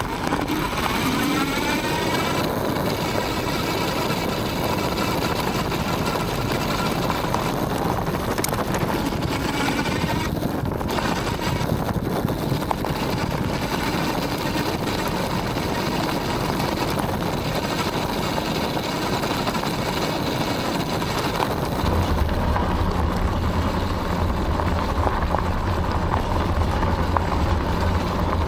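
Aniioke A8 Pro Max dual-motor e-bike riding on a gravel road: a steady rush of tyre and road noise under an electric motor whine. The whine rises in pitch over the first two seconds, then holds steady. A deeper rumble comes in near the end.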